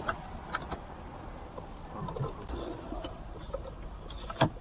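A few sharp clicks and knocks of hard plastic and metal parts being handled while a gear lever is fitted, three close together near the start and one more near the end, over faint steady background noise.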